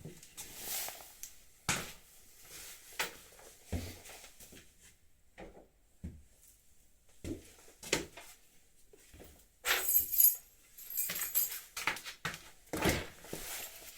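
Scattered clicks and knocks of plastic motorcycle fairing panels and bolts being handled and fitted. About ten seconds in there is a bright metallic rattle, and a second one shortly after, like loose bolts or a tool.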